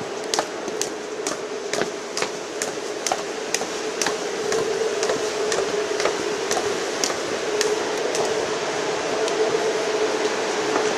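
Footsteps going down a stairway, sharp steps at about two a second that fade out after about seven seconds, over a steady mid-pitched machinery hum inside the power plant that grows louder about four seconds in.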